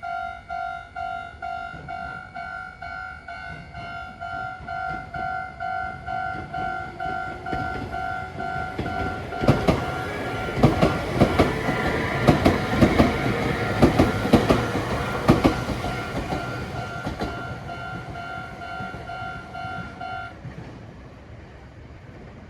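Japanese level-crossing warning bell ringing in a steady electronic two-tone beat, about two strokes a second. A train rolls through the crossing about halfway in, its wheels clacking sharply over the rail joints for around six seconds. The bell stops about two seconds before the end.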